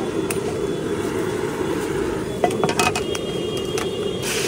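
Steady low street rumble with a few light metal clinks as the pan is greased and the cup is handled. Near the end a loud sizzle starts as beaten egg is poured into the hot oiled iron pan.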